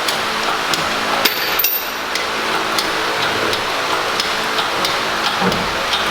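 Sharp metallic taps and clinks from hand tools working on metal, about two a second, over a steady hum of shop noise.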